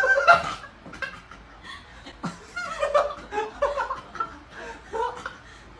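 A person snickering and chuckling quietly in short bursts.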